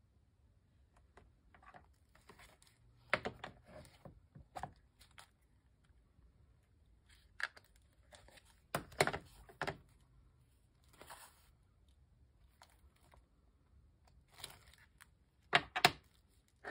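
Tabletop crafting handling: scattered sharp taps and clicks with brief paper rustles, as a clear acrylic stamp block and ink pad are handled and a number stamp is pressed onto a paper journal page. The loudest clicks come near the end.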